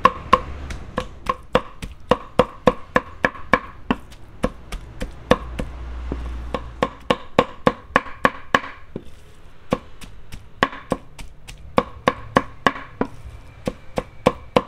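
Knife chopping raw pork into mince on a thick wooden chopping block: quick, regular strikes about three a second, each a sharp knock with a short ring. A brief pause comes about two-thirds of the way through.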